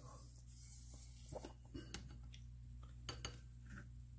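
Faint, scattered light clinks and taps as a toothbrush dabs peroxide-salt solution onto black iron pipes and the pipes knock together, about half a dozen in all, over a low steady hum.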